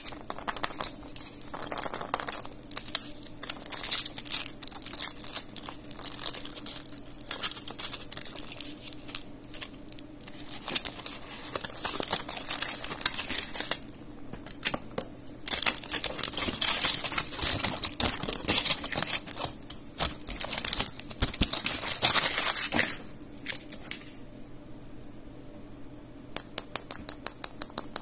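Thin foil wrappers crinkling and tearing as they are peeled by hand off chocolate eggs, in two long spells with a short pause between. Near the end, a quick run of light clicks, about seven a second.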